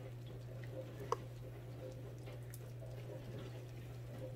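Faint soft crackling of hot cheese sauce bubbling in a cast iron skillet fresh from the oven, over a steady low room hum, with one light click about a second in.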